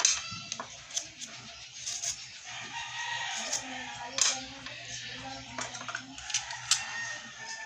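Several sharp clicks from a hard drive's circuit board being handled against the drive, with a bird calling in the background.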